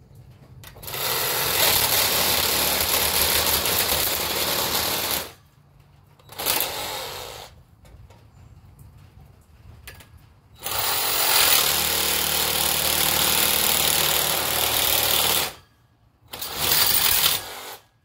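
Reciprocating saw running and cutting through the metal tubing of a tent frame, in four runs: a long one of about four seconds, a short burst, another long run of about five seconds, and a final short burst, with quiet pauses between.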